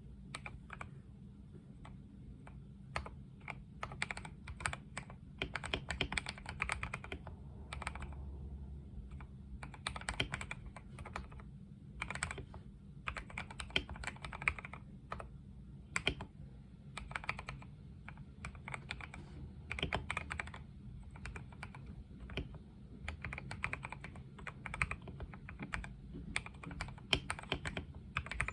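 Typing on a KBD67 Lite mechanical keyboard with lubed Gateron Milky Yellow linear switches, lubed and holee-modded Durock V2 stabilizers and Macaron keycaps: a steady stream of keystrokes in quick runs with short pauses.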